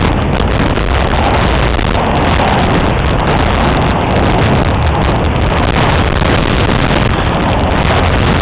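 Steady, loud rush of wind buffeting the microphone as a skier descends the slope, mixed with the skis sliding over the snow.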